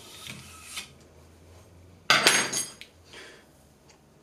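An anodized aluminium rod scraping as it is drawn out of the printer's plastic joiners and bushings, then a sharp metallic clank with a brief ringing about two seconds in.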